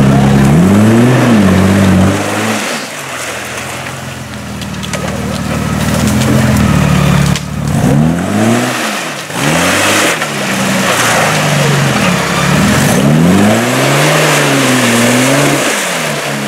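Suzuki SJ (Samurai) off-roader's engine revving up and down over and over, its pitch climbing and dropping every second or two. It eases off for a few seconds after about two seconds in, then revs hard again.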